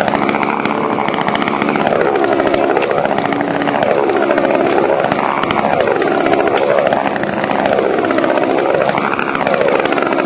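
Running chainsaw engines, their pitch rising and falling in a regular cycle about every second and a half.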